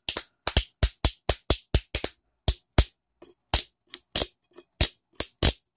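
A pair of spoons played as hand percussion: sharp clacks at about four a second in an uneven rhythm, with a short pause around the middle.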